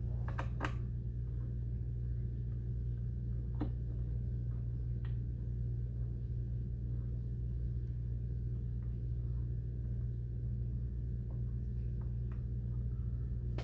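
Steady low electrical hum, with a few faint metallic clicks as an Allen key is turned by hand on a heat exchanger cover bolt.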